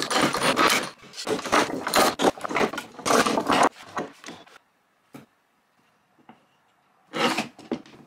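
Parallel bar clamps being loosened and taken off a glued-up wooden panel: the handle screws turn and the jaws scrape and slide along the steel bars in three rough, rubbing runs over the first four seconds or so. A couple of light knocks follow, then a short scrape about seven seconds in.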